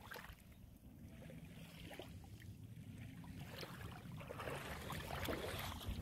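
Faint splashing and sloshing of shallow water as a person wades in rubber boots, growing a little louder near the end as the plastic kayak is set down onto the water.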